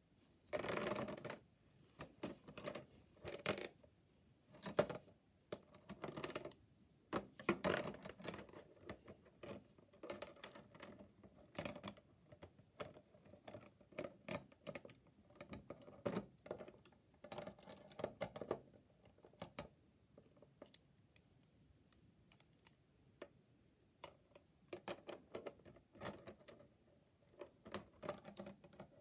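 Plastic Lego Technic beams and connectors being handled and pressed together: irregular small clicks and rattles, with a lull about two-thirds through.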